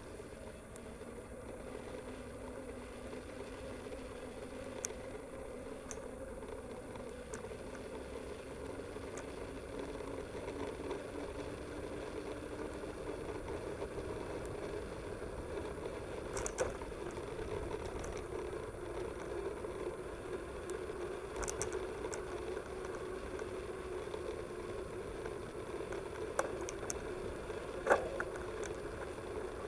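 Mountain bike rolling along a brick-paved path, picked up through the handlebar-mounted camera: a steady rolling hum that rises slowly in pitch over the first half, with a few sharp knocks and rattles from bumps.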